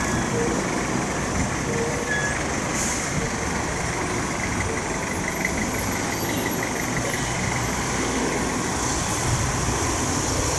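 Steady vehicle engine and traffic noise.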